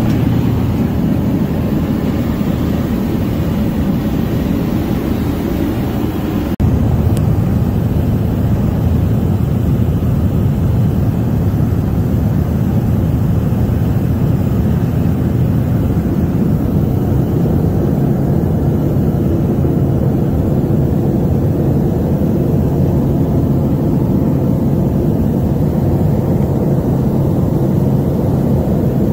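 Aircraft cabin noise during the approach to landing: the engines and rushing air make a steady, loud noise, with a low hum that grows stronger about halfway through. There is a momentary drop-out about six and a half seconds in, and the noise is a little louder after it.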